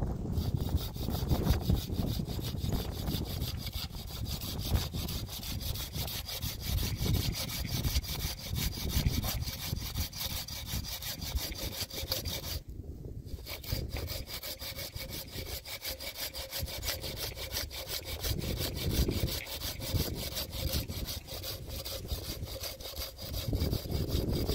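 Small hand saw cutting back and forth through a dry tree branch in quick, steady strokes, with a brief pause about halfway through.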